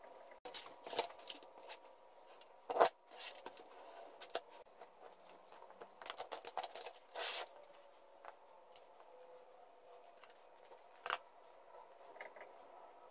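Plywood pieces clicking and knocking against each other as they are fitted together by hand, with a run of quick clicks and a short scrape about six to seven seconds in as they are set in a small vise and it is tightened.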